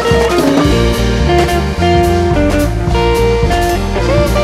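Instrumental background music: a bluesy guitar melody of held notes over bass, with a steady beat.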